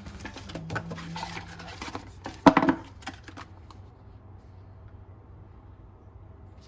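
Box contents being handled: light rustling and small clicks, with one louder knock about two and a half seconds in, then only faint room hum for the last few seconds.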